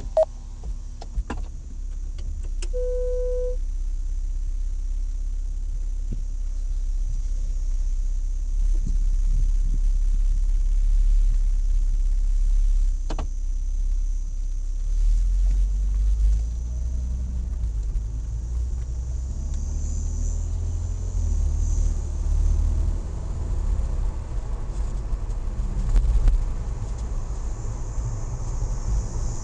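Car engine and road noise heard inside the cabin, a steady low rumble as the car moves off from a stop and drives on. A few clicks and a short beep come early, before the rumble builds.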